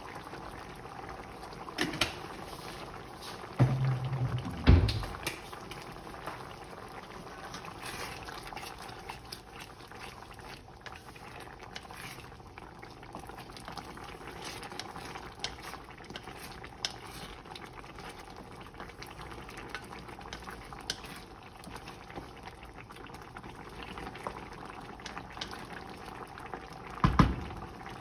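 A pot of chicken yellow curry simmering with a steady bubbling crackle, broken by a few knocks, loudest about four to five seconds in and again near the end.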